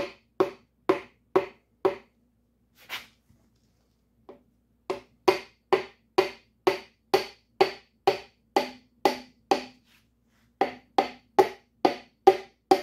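The wooden handle of a hammer tapping a piston down through a ring compressor into a small-block Chevy V8 cylinder: sharp, hollow knocks about two a second, in three runs with short pauses. The hollow sound shows the piston is still sliding down the bore and not yet seated.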